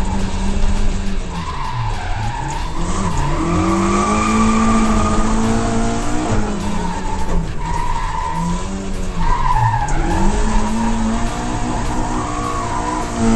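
Rally car engine revving hard, its pitch dropping and climbing again several times through gear changes and lifts, with tyres squealing as the car slides.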